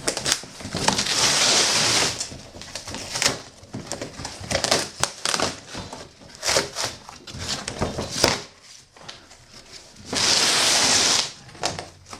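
Cardboard box and packaging being opened and handled: two long rasping noises, about a second in and again about ten seconds in, between scattered knocks and crinkles.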